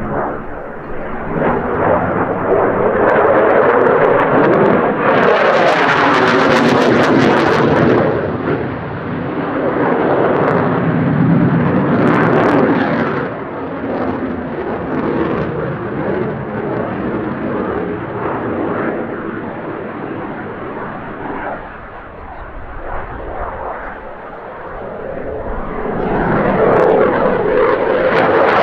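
Saab JAS-39 Gripen fighter's Volvo RM12 afterburning turbofan during a display manoeuvre. The jet noise swells and fades as the aircraft turns overhead, with sweeping tones early on. It is loudest about four to eight seconds in, eases off through the middle and builds again near the end.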